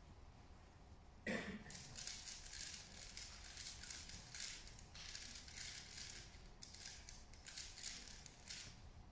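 A 3x3 speedcube being turned fast: quick bursts of plastic clicking and clacking from the layer turns, with short pauses between them. They start right after a single knock about a second in.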